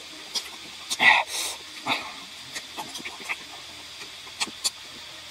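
A person eating close to the microphone: a loud slurp about a second in, then scattered lip smacks and mouth clicks while chewing.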